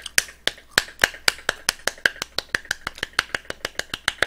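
Rapid, light hand claps, a quick even patter of about nine sharp claps a second.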